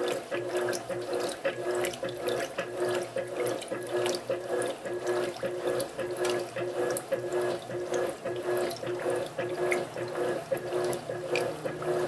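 Electrolux Silent Control LAC12 top-loading washing machine agitating in its second rinse: water sloshing and splashing, with a mechanical hum that pulses in a steady, even rhythm.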